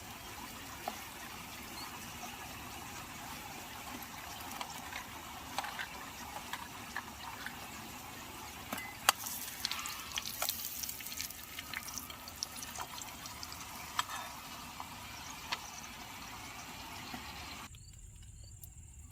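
Food frying in hot oil in a pan on a camping gas stove: a steady sizzle with scattered sharp pops and spatters. It cuts off suddenly near the end.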